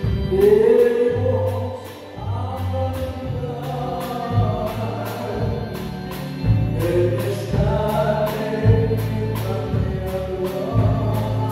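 Live band playing a song, with a man singing: electric guitar, electric bass, drum kit and electronic keyboard, over a steady drum beat and a repeating bass line.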